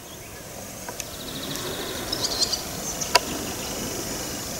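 Outdoor meadow ambience: an insect trills in short, evenly spaced pulses while a bird gives a few brief high chirps about two seconds in. A sharp click about three seconds in is the loudest sound.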